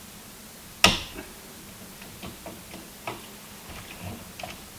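Screwdriver and wire working at a circuit breaker's terminal screw as the wire is disconnected: one sharp metallic click about a second in, then scattered light ticks and clicks.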